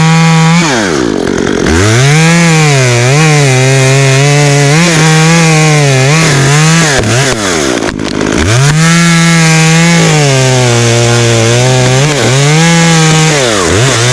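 Two-stroke chainsaw at full throttle cutting through oak, its pitch sagging and recovering as the chain works in the cut. The throttle drops off to idle briefly about a second in, again near eight seconds and near the end, and each time revs back up.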